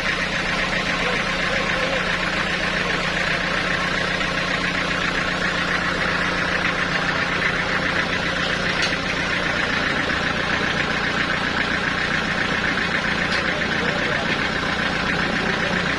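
Sawmill engine running steadily at a constant speed, with a fast, even rattle and no change in load.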